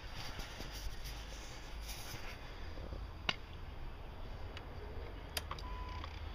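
Quiet handling noise over a low rumble, with a few sharp clicks, the loudest about three seconds in, and a short steady beep near the end.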